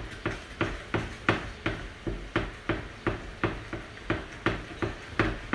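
A stirring utensil knocking against a frying pan in a steady rhythm, about three knocks a second, as a thick sauce is stirred.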